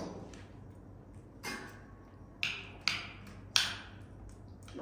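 Four sharp taps, unevenly spaced over about two seconds, over a faint background.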